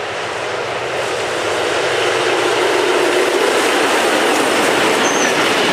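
Steady rush of water spraying over a muddy toy train as it is rinsed, slowly growing louder.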